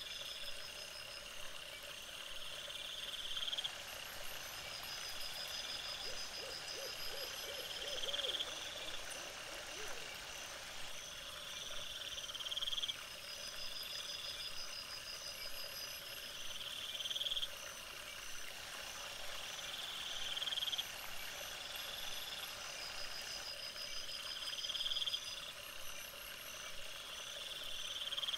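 A chorus of frogs calling from the pond: pulsed trills that swell and stop every couple of seconds, with fainter, higher trills in between.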